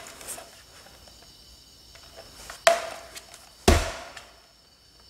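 Two sharp knocks about a second apart, the second with a deeper thud, over faint steady high-pitched whine.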